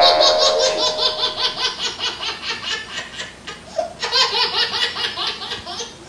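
Laughter sound effect for a cartoon character: a rapid, rhythmic string of 'ha-ha' pulses, about four a second. It fades, then picks up again more strongly about four seconds in.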